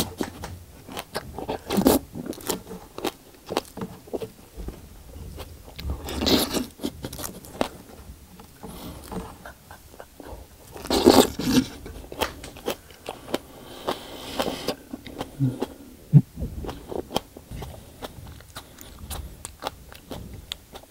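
Wet mouth sounds of raw aloe vera gel being sucked in and chewed: many small sticky clicks and smacks, with a few longer slurps about six and eleven seconds in.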